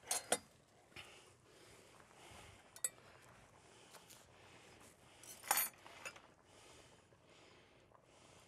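A few scattered light clicks and clinks as chives are cut and handled over a salad plate, the loudest about five and a half seconds in, between stretches of quiet room tone.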